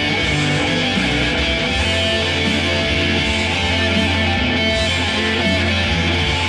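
Electric guitar played through an amplifier, dense and continuous, with a steady low note held from about two seconds in.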